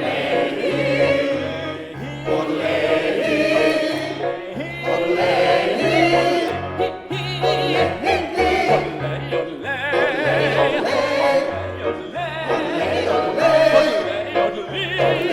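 A group of voices singing a lively song over an instrumental accompaniment with a bouncing bass line of short repeated notes.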